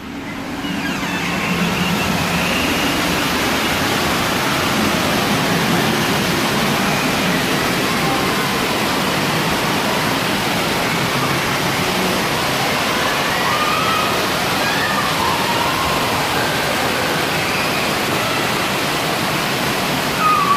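Steady rush of splashing water from an indoor water park's fountains and play-structure water features, with distant voices mixed in; it swells up over the first second or two.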